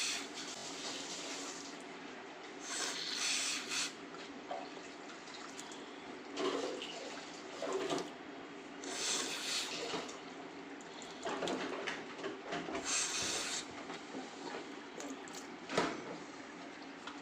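A woman with a cold blowing her stuffed nose several times: about six forceful, hissing blows a second or two apart, clearing mucus from a nose blocked by a head cold.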